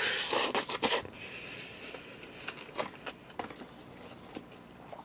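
A person eating: a forkful of food going into the mouth with a short noisy burst in the first second, then quiet chewing and a few small clicks of utensils.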